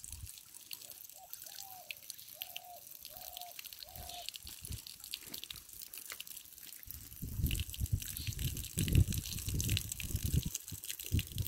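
Thin stream of water running from the spout of a cast-iron hand pump that nobody is working, splashing steadily onto a flat stone. A low buffeting rumble comes in about seven seconds in and is the loudest sound from then on.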